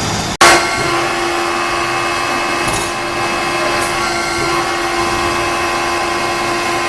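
Power tool used in track repair, running steadily with a constant whine. It starts abruptly just under half a second in.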